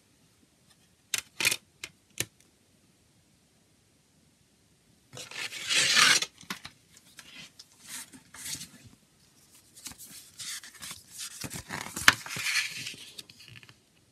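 A few sharp clicks of a plastic CD jewel case being handled, then rustling and scraping of paper against plastic as the CD booklet is slid out of the case and its pages are opened.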